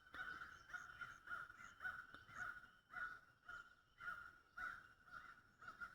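Faint, repeated cawing of crows, a steady string of short calls about two a second.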